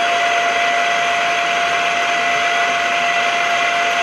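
DMF-42 twelve-speed geared-head drill press running, its motor and gearbox giving a loud, steady whine with one constant tone.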